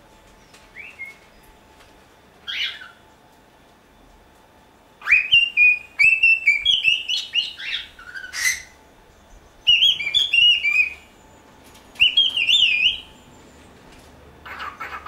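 Cockatiel whistling its song: two short chirps, then from about five seconds in three runs of warbling whistled phrases that hop up and down in pitch, and a fast repeated chatter near the end.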